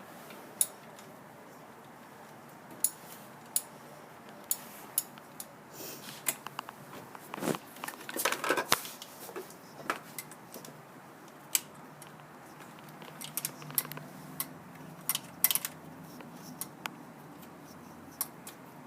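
Scattered sharp metallic clicks and taps of hand tools and parts being handled during a car starter replacement, with a denser clatter about eight seconds in.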